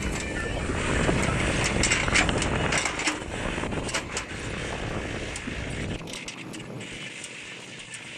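Diesel tractor engines running, a dense rumble with rattling clicks that eases and loses its deepest part about six seconds in.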